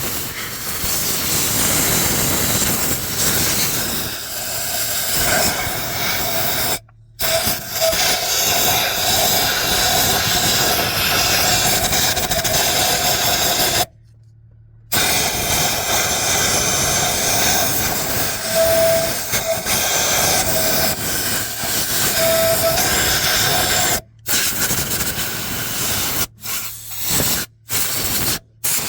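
Compressed-air blow gun blasting in long bursts, with short breaks where the trigger is let go, blowing dust and grime off the engine. A faint whistle rides on the hiss at times.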